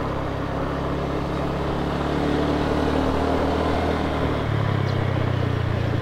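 A motor vehicle's engine running steadily, heard from on board, with road noise; its note shifts lower about four and a half seconds in.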